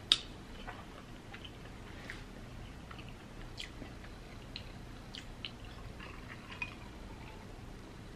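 Faint, close-miked eating sounds: a person chewing, with scattered small wet mouth clicks and one sharp click right at the start.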